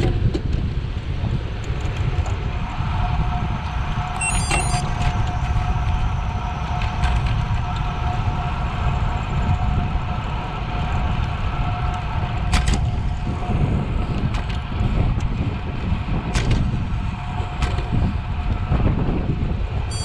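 Wind buffeting the microphone of a cyclist riding at speed, a loud, steady rumble, with a faint steady hum and a few sharp clicks.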